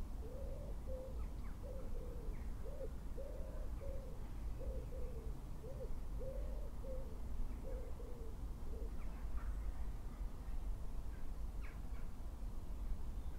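A bird calling a run of low, soft notes, mostly in pairs, that stops about nine seconds in, over a steady low rumble of wind. A few faint higher chirps come near the end.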